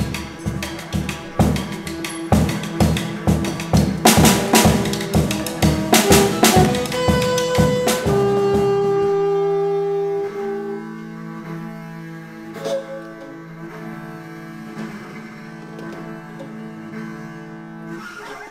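Live improvised ensemble music: a drum kit plays busy, irregular hits for about the first eight seconds, then the ensemble holds a sustained chord of several long notes, with bowed strings among them, to the end.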